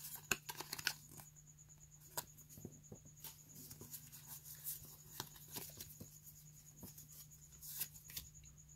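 Pokémon trading cards handled and flipped through by hand: faint rustles of cards sliding over each other with short flicks and clicks, several of them in the first second and again near the end.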